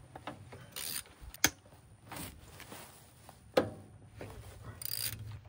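Hand tools and loose bolts being handled while unbolting an outboard's lower unit: scattered light clicks and rustles, with two sharp metallic knocks, one about a second and a half in and one about three and a half seconds in.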